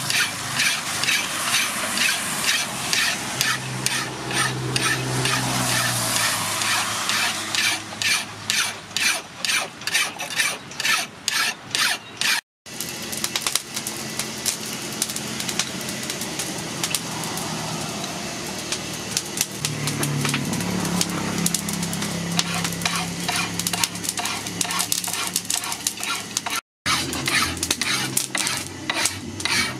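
Hand file rasping across a steel axe head in repeated push strokes, about two to three a second. In the middle stretch the strokes blur into a steadier scraping.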